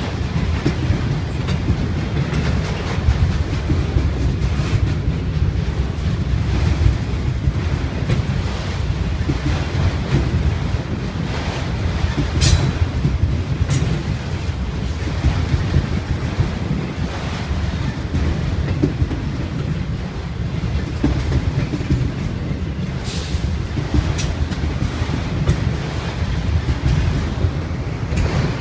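Freight train of autorack cars rolling past: a steady low rumble with wheels clicking, and a few brief sharp high-pitched sounds about halfway through and again later.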